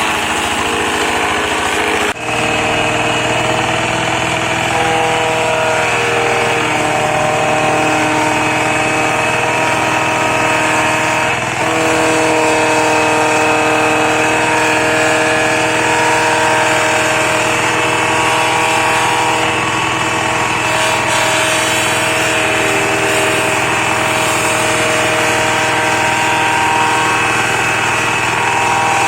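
Engine of a branch shredder running steadily, its note dipping briefly about two seconds in and shifting a little a few times after.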